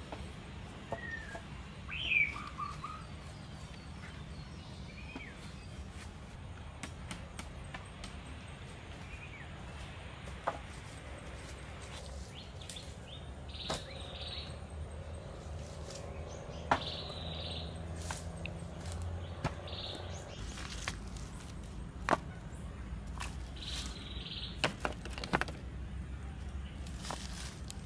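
Scattered knocks and clunks of wooden poles and stones being handled and set while building a pole shelter, with a few birds chirping about two seconds in.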